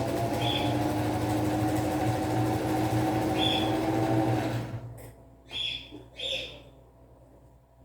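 Domestic sewing machine stitching at a steady speed, then stopping about two-thirds of the way through. After it stops, two short high chirps come less than a second apart.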